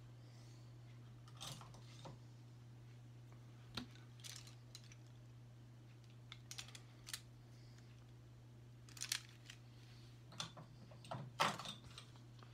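Small objects being handled: irregular short clicks and rattles in little clusters, the loudest near the end, over a steady low hum.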